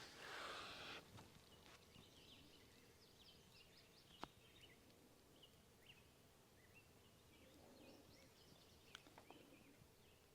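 Faint chirping of small birds, short high calls scattered throughout. At the start a hiss of water being sprayed onto the freshly sawn pine slab stops about a second in. A couple of faint clicks follow.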